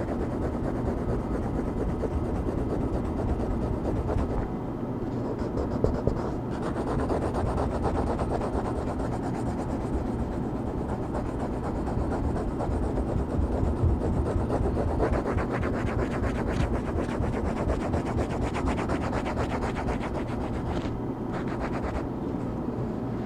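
Coloring strokes rubbing steadily on a coloring-book page, a dense run of quick back-and-forth scratchy strokes.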